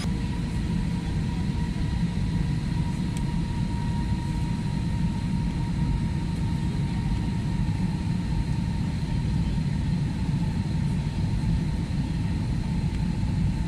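Airbus A320 cabin noise during the approach: a steady low rumble of the engines and airflow, with a thin steady whine above it.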